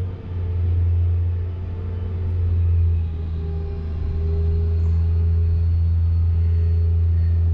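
1999 Toyota Surf's gasoline engine idling with a steady low drone, heard from underneath the truck. It is pretty loud, a sign that the exhaust needs repair.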